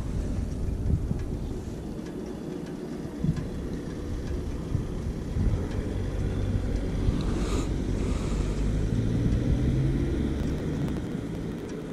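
Motorcycle engine idling with a low, steady rumble that swells a little from about eight seconds in.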